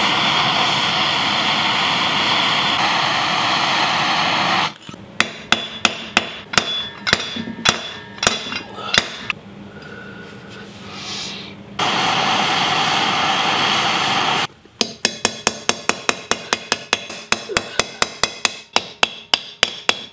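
A MAPP gas torch burns with a steady rushing noise, heating the eye of an axe head. In between, a ball-peen hammer strikes the hot eye against a sledgehammer head used as an anvil, metal on metal, to beat the dented, mushroomed eye back out flat. Torch and hammering alternate twice, and the last run of blows comes quickly and evenly, about three or four a second.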